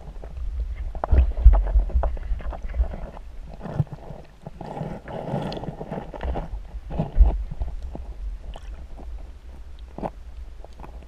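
Muffled underwater sound picked up by a GoPro in its waterproof housing: a low rumble of moving water with scattered clicks and knocks. The rumble surges loudest about a second and a half in and again around seven seconds.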